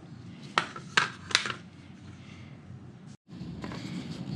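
Three sharp plastic clicks in quick succession, about half a second to a second and a half in, from the plastic parts of a Rhino-Rack roof-rack foot being handled and fitted together, with light rubbing and handling noise. It breaks off in a brief cut to silence near the end, then the handling resumes.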